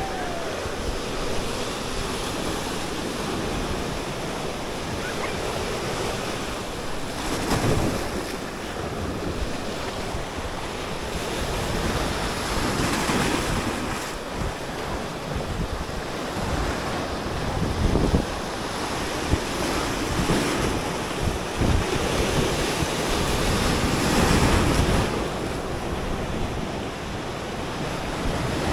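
Small sea waves breaking and washing over rocks and sand at the shoreline, swelling louder every few seconds. Gusts of wind rumble on the microphone now and then.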